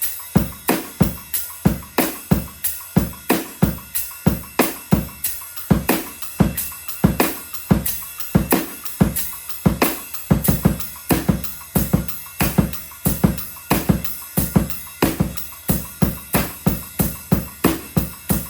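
Drum kit playing a steady groove: eighth notes on the ride cymbal, snare backbeats and kick drum strokes in changing groupings, an even run of sharp hits.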